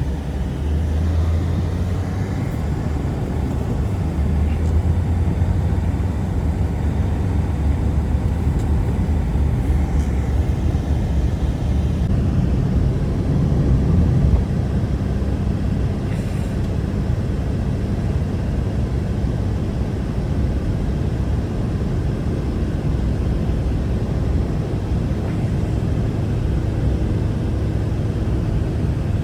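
Strong blizzard wind blowing steadily, a loud, deep rumble that rises and falls slightly without letting up.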